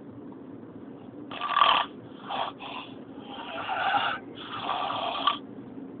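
A man snoring loudly in his sleep: a run of harsh snores starting about a second in, two short ones in the middle and two longer ones near the end, over the steady low hum of a car cabin.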